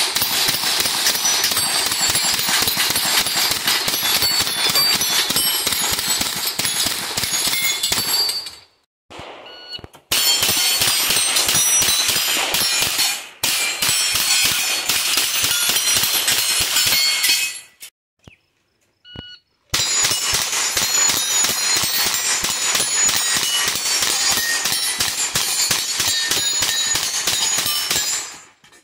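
Rapid handgun fire at steel plate targets, the plates ringing as they are hit, in three long strings of shots with short breaks between them. A short beep, like a shot timer's start signal, comes just before the last string.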